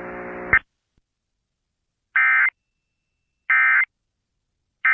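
Emergency Alert System End of Message tones: three short, loud bursts of warbling digital data about 1.3 seconds apart. These are the encoded 'NNNN' signal that closes the alert. Before them, a steady hum cuts off about half a second in.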